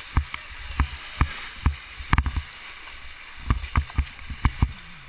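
A kayak running whitewater rapids: a steady rush of water with irregular thumps and splashes, a few a second, as waves slap the boat and the paddle strokes.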